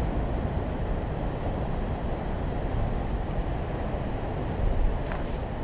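Wind buffeting the microphone over breaking surf: a steady low rush.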